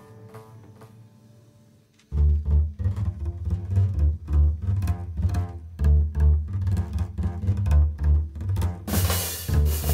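Upright double bass played pizzicato, a line of strong plucked low notes starting about two seconds in as the ring of earlier notes dies away. Drums and cymbals join the bass near the end.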